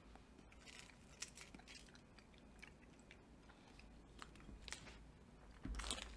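Faint mouth sounds of someone chewing a Hershey's Kiss chocolate, with small clicks and crinkles of the foil wrapper and bag being handled. A louder rustle and bump come just before the end.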